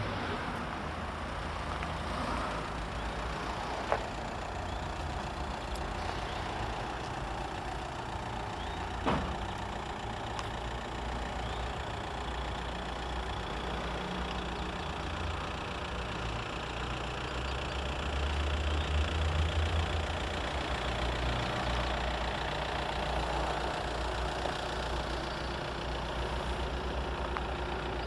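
Peugeot 206 petrol-or-diesel hatchback engine idling steadily, a low even rumble that grows somewhat louder for a few seconds in the middle. Two brief knocks sound about four and nine seconds in.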